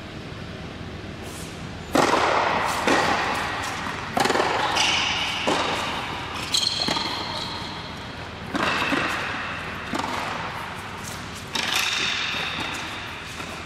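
Tennis rally: a tennis ball struck by rackets and bouncing on a hard court, a sharp pop every one to two seconds starting about two seconds in, each ringing out in the echo of a large indoor hall. Between hits come high squeaks of tennis shoes on the court surface.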